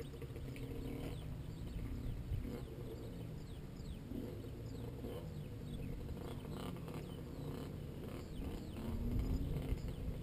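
Motocross bike engines running and revving, rising in pitch about eight seconds in, with wind buffeting the microphone near the end.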